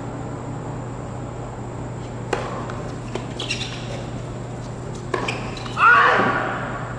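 A point of tennis on a hard court: sharp racket-on-ball strikes about two, three and five seconds in, with short high squeals between them, the loudest just before the end, over a steady low hum.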